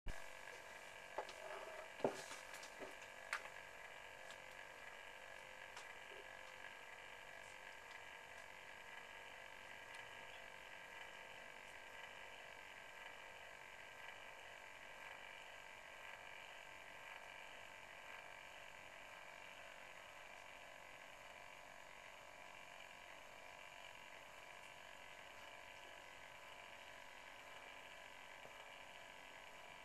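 Near silence: a faint steady electrical hum, with a few sharp clicks in the first few seconds.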